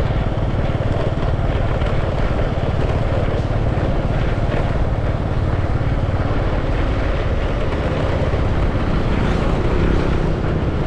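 Steady rush of wind on the microphone over the low rumble of a moving vehicle, with no distinct events.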